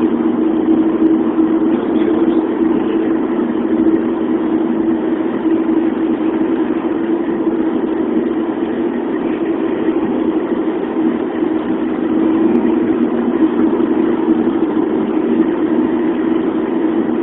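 Steady drone of a car driving at highway speed, heard inside the cabin: engine and tyre noise with an even low hum and no change in pace.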